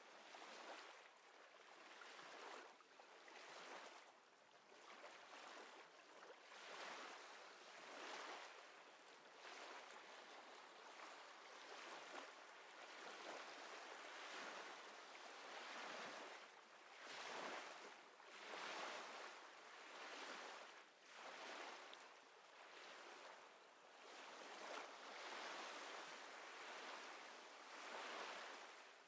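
Faint, soft wash of small waves, swelling and fading every second or two.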